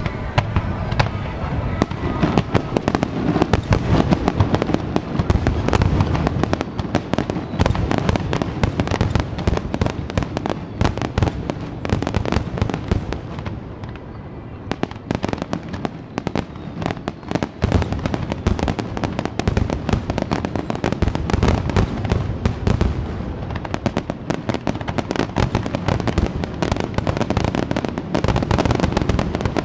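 Fireworks display: a dense, continuous barrage of shell bursts and crackling bangs, easing slightly around the middle before building again.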